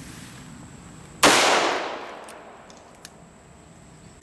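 Taurus Raging Judge revolver firing a .410 shotshell: one sharp shot about a second in, its report dying away over about a second, and a second shot right at the end.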